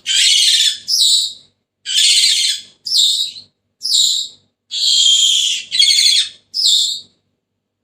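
Senegal parrot giving a string of shrill, rasping screeches, about nine calls, each half a second to a second long, with short pauses between them.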